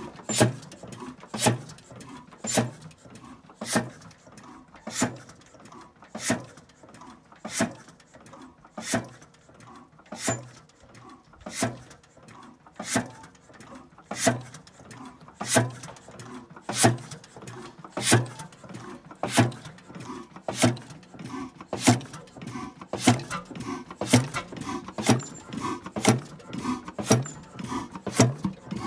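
Crossley O115 single-cylinder horizontal heavy-oil engine running slowly, with a sharp knock about every 1.2 seconds. In the second half lighter clicks fall between the main beats.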